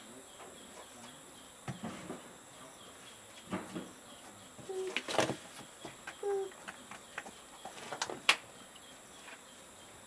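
Scattered small clicks and taps of hands and tools working cotton into a bird skin during specimen preparation, the sharpest about eight seconds in. Under them runs a steady high-pitched insect drone.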